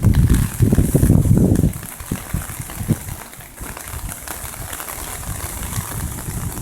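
Heavy rain falling in a downpour, a steady hiss with scattered drop ticks. For the first two seconds wind buffets the microphone with low rumbling gusts, which die away, leaving the rain on its own.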